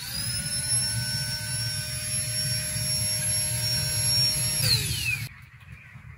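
A small electric motor spins up with a rising whine, runs steadily over a rushing of air for about four and a half seconds, then winds down in pitch and stops about five seconds in.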